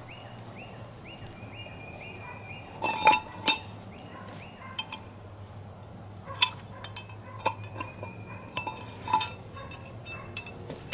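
Metal hydrant parts clinking as they are handled: scattered sharp metallic clinks, the loudest two about three seconds in and more in the second half. A bird chirps in a quick repeated series over the first couple of seconds.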